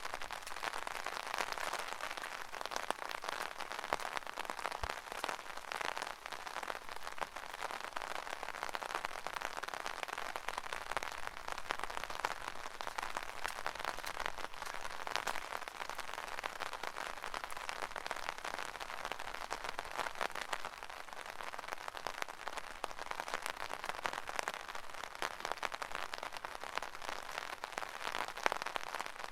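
Steady rain pattering on an umbrella canopy: a dense hiss of countless small drop impacts, with sharper single drops ticking through it.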